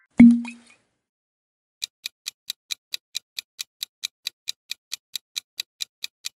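Clock-ticking countdown timer sound effect: sharp, evenly spaced ticks at about four to five a second, starting a little under two seconds in. It is preceded by a short low thump about a quarter second in.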